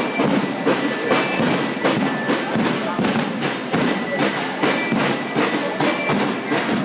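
Marching band playing in a street parade: drums striking a steady march beat with bell-like mallet notes ringing over them, amid the voices of the crowd and marchers.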